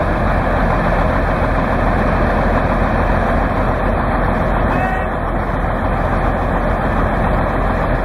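Steady, dense engine noise from a vintage Caterpillar D8 crawler bulldozer and a line of off-road SUVs pulling against each other under load in a tug-of-war.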